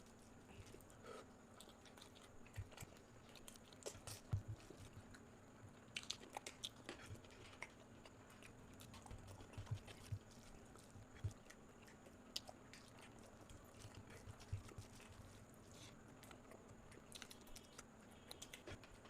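A person chewing food close to the microphone, with irregular soft mouth clicks and crunches.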